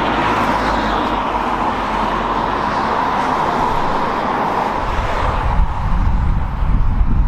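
Road traffic noise, a steady rush of passing vehicles, with a deeper low rumble building about five seconds in.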